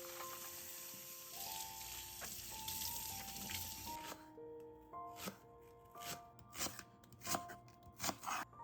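Background music of slow, held melody notes, with a steady hiss over the first half and a series of light knocks and clicks in the second half.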